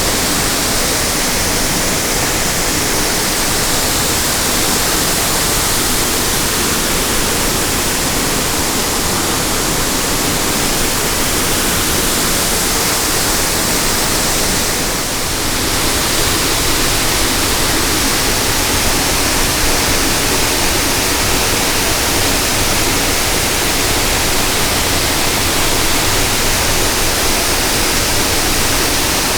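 Kaminari Falls waterfall pouring: a loud, steady rush of falling water, briefly a little softer about halfway through.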